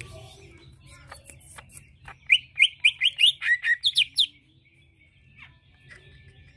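Greater green leafbird (cucak ijo) calling. A few faint chirps come first, then about two seconds in a fast run of about ten loud, sharp rising chirps over two seconds, after which it stops.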